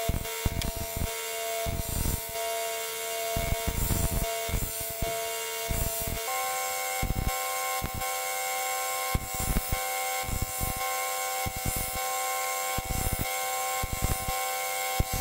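Belt grinder running with a steady whine while a steel seax blade is ground against the abrasive belt, with irregular scraping as the blade is worked on the belt. The whine steps up slightly in pitch about six seconds in.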